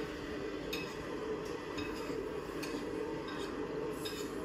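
Light, irregular clicks of a computer mouse scroll wheel, roughly two a second, over a steady low drone.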